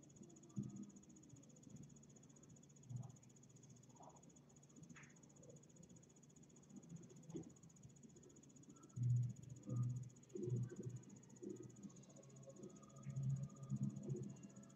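A steady high cricket trill, with irregular soft low thumps and scuffles from kittens playing on the floor, coming more often and louder in the second half.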